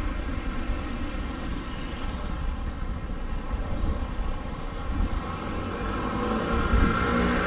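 Passing motor traffic: a steady low rumble, with a vehicle engine growing louder from about six seconds in.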